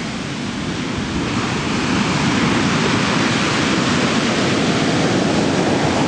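Ocean surf: waves breaking and foam washing up a sand beach. It is a steady rush that swells slightly over the first couple of seconds.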